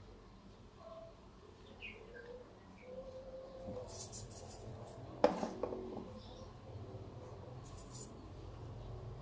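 Handling noise from a rifle scope being moved about over its cardboard box: soft rubbing and rustling, with one sharp knock about halfway through.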